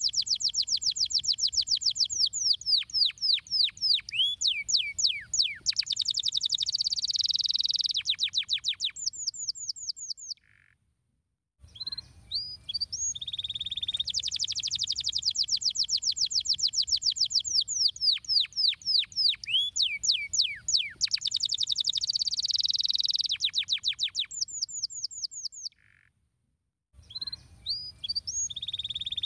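Domestic canary singing a long song of fast trills and rapidly repeated sweeping notes. The song stops dead twice, about ten seconds in and again near the end, then starts up again.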